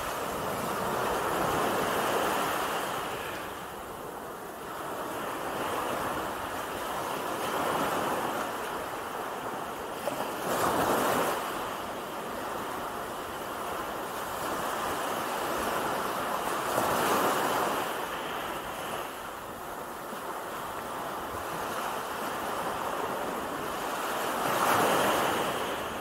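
Small surf washing up the beach in a steady wash of water noise. It grows louder three times as waves break and run up over the sand.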